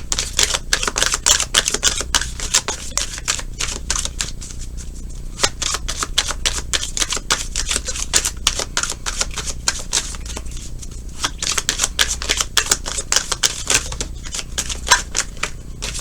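A deck of tarot cards being shuffled by hand: rapid, dense clicking of card edges in three runs, with short pauses about five seconds and eleven seconds in.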